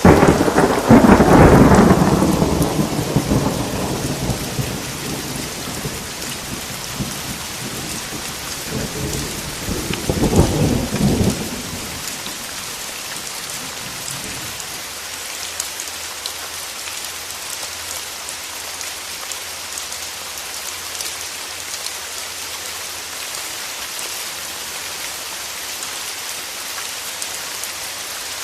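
Steady rain with thunder: a loud roll of thunder right at the start that fades away over about six seconds, and a second, shorter rumble about ten seconds in.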